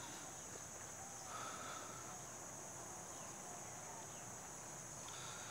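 Faint rural ambience: a steady high insect drone, with a few soft, short bird calls.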